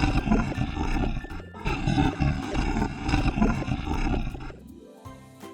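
Rough, growling roar played as the Komodo dragon's sound. It breaks off about a second and a half in, repeats, and stops near the end, where light children's music begins.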